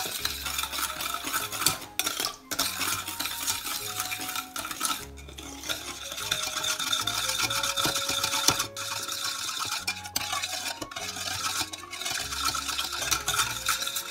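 Metal spoon stirring round a small stainless-steel saucepan of warming vinegar, sugar and salt, scraping the bottom with frequent light clinks against the pan while the sugar dissolves.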